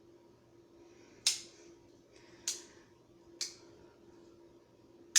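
Sharp metallic clicks of a multi-blade pocket knife's tools snapping into place, three about a second apart and a louder one at the end, over a faint steady hum.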